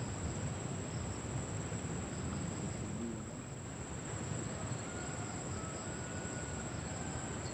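Steady high-pitched drone of insects, over a continuous low rumble.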